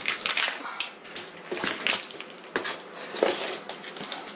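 Cardboard packaging and tape being cut and torn open with a pocket knife, with plastic wrap crinkling: a run of irregular scrapes and crackles about a second apart.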